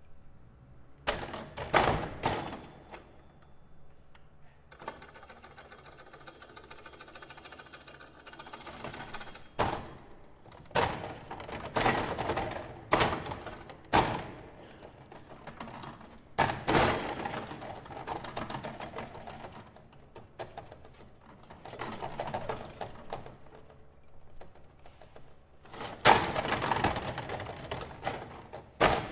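Table-football (foosball) table played as an instrument: its metal rods are rattled, spun and struck in irregular bursts of clattering with sharp knocks, and a steadier buzzing rattle for a few seconds about five seconds in.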